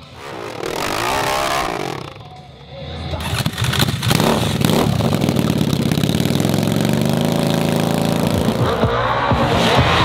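Dirt bike engine running, with a few throttle revs. It gets loud and steady from about three seconds in.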